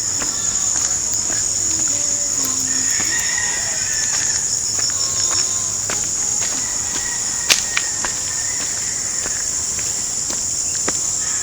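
Steady, high-pitched chorus of insects, with a sharp click about seven and a half seconds in.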